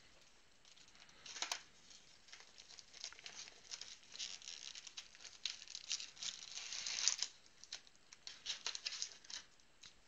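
Plastic trading-card packaging crinkling and tearing in quick scratchy bursts as it is opened, with a sharp click about a second and a half in.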